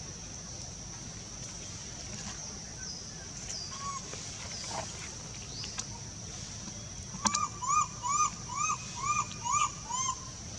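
A baby macaque crying: a run of about seven short, arching, high-pitched calls, roughly two a second, starting about seven seconds in. A steady high whine runs underneath.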